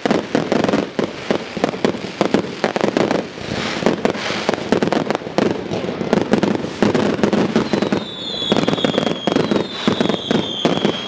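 Fireworks display: a dense, rapid crackle of many small bangs from crackling stars and bursting shells. Near the end, two high whistles, each falling slightly in pitch, sound about two seconds apart over the crackle.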